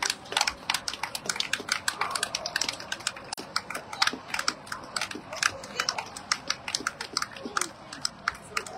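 Scattered hand clapping from a few spectators: irregular sharp claps, several a second, over the faint murmur of a crowd in a large hall.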